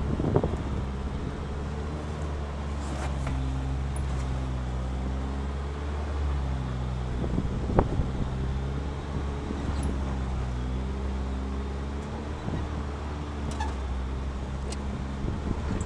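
Off-road 4x4's engine running at low revs while crawling up a steep rocky trail, heard from inside the cab, its pitch slowly rising and falling with the throttle. A few sharp knocks from the rocks and the suspension.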